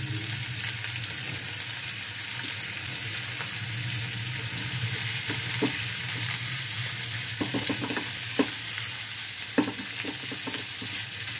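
Freshly added strips of ash gourd skin sizzling in hot oil in a frying pan while a wooden spatula stirs them, with a few sharp scrapes and taps of the spatula against the pan from about three seconds in. A steady low hum runs underneath.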